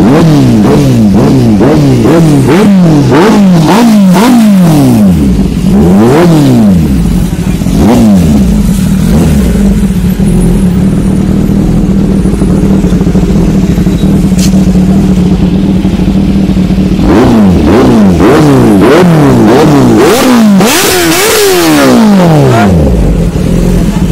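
Kawasaki Ninja ZX-10R's inline-four engine idling through an aftermarket slip-on exhaust and revved in quick throttle blips. There is a run of sharp rising-and-falling revs for the first several seconds, a steady idle in the middle, then another burst of blips near the end.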